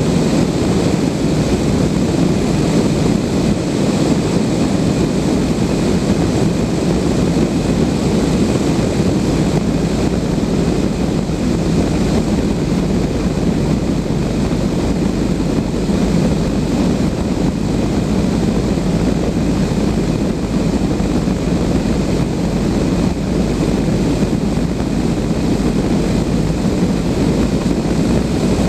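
Steady rush of air around a Blanik L-13 glider's cockpit in flight, heard as loud, unbroken wind noise on the microphone.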